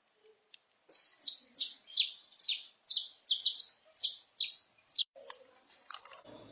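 Male saffron finch singing: a fast run of about a dozen loud, sharp, down-slurred notes over about four seconds, starting about a second in, followed by fainter chirps.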